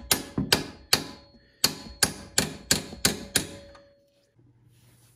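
About nine sharp hammer taps on metal, in a run of three and then a quicker run of six, each leaving a short metallic ring, stopping about four seconds in. The taps are knocking at a stuck bolt that a hidden retaining clip holds in place.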